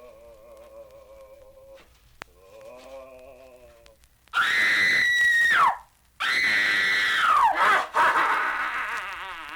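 Horror sound-effects record: a quiet, wavering moaning tone is held twice. Then two loud, high-pitched screams each break off with a falling pitch, followed by a further scream that trails away.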